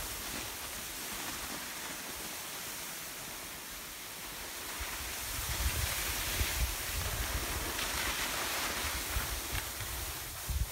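Skis hissing over snow with wind rushing across the microphone during a downhill ski run; gusty low buffeting grows stronger from about halfway through.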